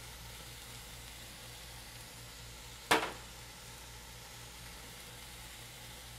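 Faint steady sizzle of spinach and sour cream in a stainless pan on a gas burner, over a low hum, with one sharp click about three seconds in.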